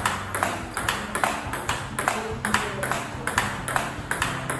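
Table-tennis rally: a plastic ball struck back and forth by rubber-faced bats, each bat hit and table bounce a sharp click, in an even rhythm of about four clicks a second.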